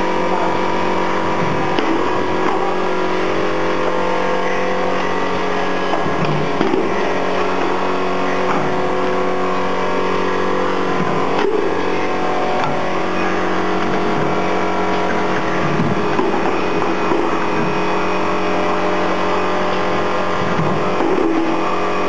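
Induction forging machine running, a steady electrical hum and drone made of several steady tones at one level.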